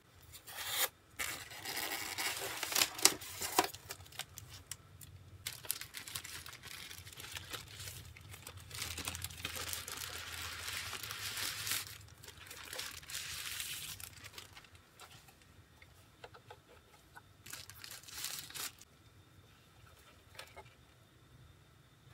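Thin white packing wrap rustling and crinkling in bursts as it is handled and pulled off a boxed model: a burst in the first few seconds, a long stretch through the middle and a short one later, with a few light clicks after it.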